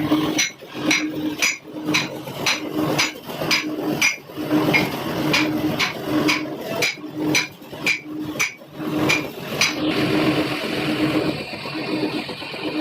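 Hammer striking metal, about two ringing blows a second, stopping about ten seconds in.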